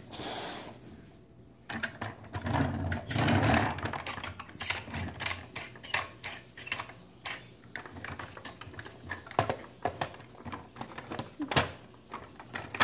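Irregular plastic clicks and knocks of a Paw Patrol Marshall toy fire truck being handled, its ladder moved and the figure fitted in.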